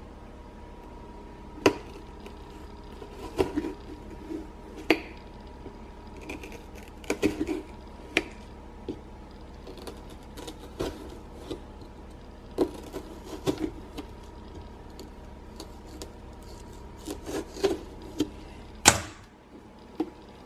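Kitchen knife stabbing and sawing through a pumpkin's rind, irregular sharp clicks and knocks every second or two, the loudest knock near the end.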